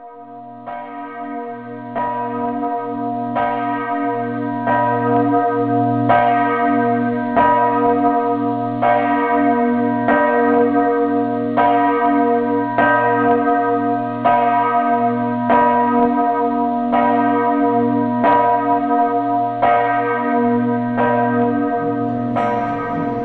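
Church bell tolling: struck again and again at a steady pace, with a deep hum ringing on between strokes. It swells up over the first couple of seconds.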